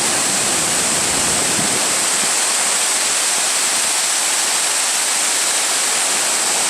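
Loud, steady rushing of a waterfall and river, an even wash of falling and running water with no breaks.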